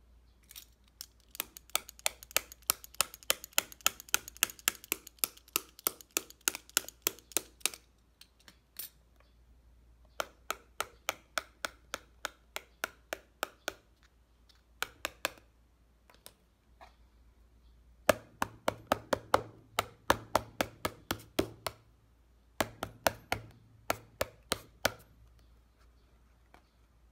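A hard object scraped back and forth across a high-aluminium glass screen protector in quick strokes, about four a second, in several bouts with short pauses between them: a scratch-resistance test of the glass.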